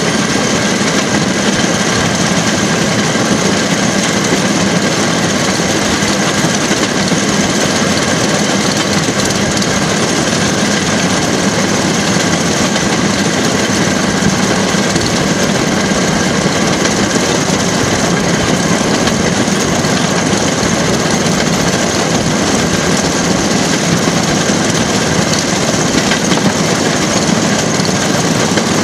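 Motorised railway track car (jigger) travelling along the rails, heard from on board: its engine runs steadily, mixed with the running noise of the car on the track, loud and unchanging throughout.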